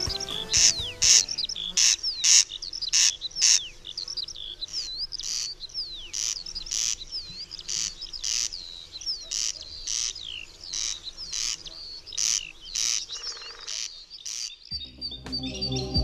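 Small songbirds chirping busily: rapid high chirps mixed with short swooping whistles, a couple every second. Music comes back in about a second before the end.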